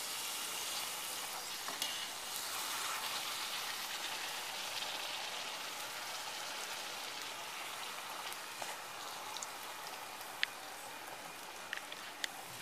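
Hot oil sizzling steadily as small rounds of phuchka (pani puri) dough deep-fry in a wok and puff up. The sizzle eases slightly toward the end, with a few light clicks.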